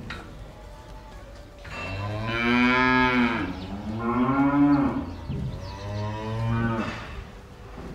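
Cattle mooing: three long, loud moos in quick succession starting about two seconds in, each one bending in pitch.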